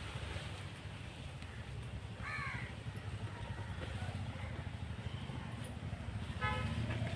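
A bird calling with a harsh caw about two seconds in and another short call near the end, over a steady low rumble.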